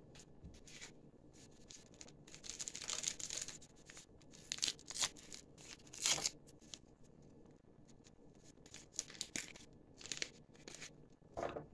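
Paper sachets of baking powder being torn open and crinkled: a series of short rustling tears, busiest about three seconds in.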